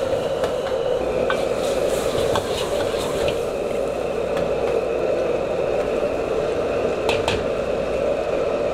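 Brown sauce bubbling and sizzling in a wok with chicken pieces, over the steady rush of a gas wok burner. Two sharp clicks come close together near the end.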